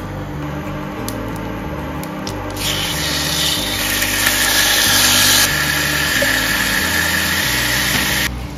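Raw chicken thighs sizzling in a hot frying pan as they are laid in, the sizzle starting about two and a half seconds in and cutting off suddenly near the end. Before it, a few light clicks of metal tongs on a steel tray.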